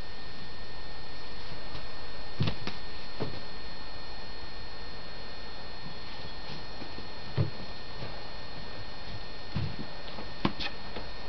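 A kitten batting at and pouncing on a rope on a pet bed: about five soft thumps and taps from its paws and the rope, spread out over several seconds, over a steady hum and hiss.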